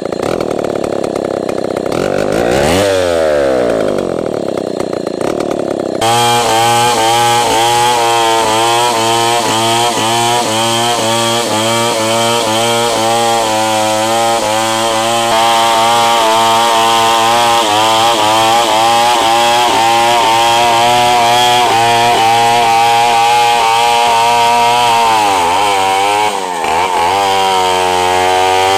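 Stihl 070 two-stroke chainsaw ripping a very hard red meranti log lengthwise into planks, held at full throttle under load with a slightly wavering pitch. For the first few seconds the saw runs in another shot with its pitch sweeping. Near the end the pitch drops briefly, then comes back up and holds steady.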